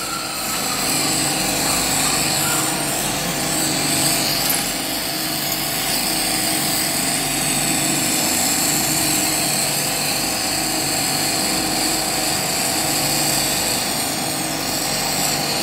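Steady hiss of a glassworking gas torch flame melting clear glass rods, with a steady tone running under it.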